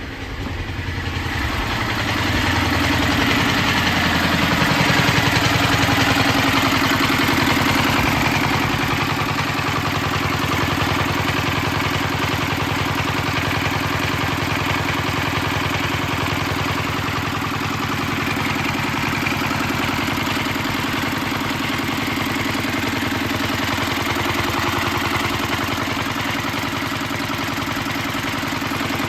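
Restored Petter PAZ1 stationary engine running steadily at a slow, even speed, getting louder over the first few seconds and then holding level.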